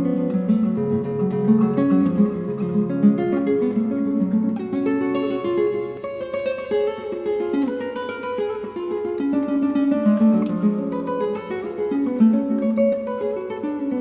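Background music: acoustic guitar playing a steady run of plucked notes and strums.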